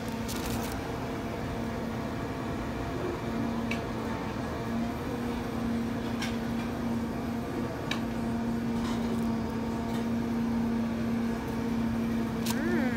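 Steady electrical appliance hum on one low pitch, with a few faint clicks and pops scattered through it, while batter is poured onto a hot waffle iron.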